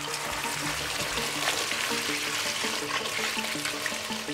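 A stream of water pouring and splashing onto a bicycle crankset, chainrings and small metal parts in a metal basin, rinsing them. Background music plays underneath.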